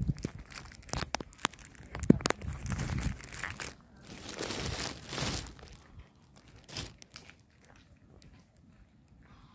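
Close crinkling and rustling handling noise, as of a plastic bag or the phone being handled near the microphone: a run of sharp clicks and crackles for the first three seconds or so, a longer rustle around the middle, then it goes much quieter.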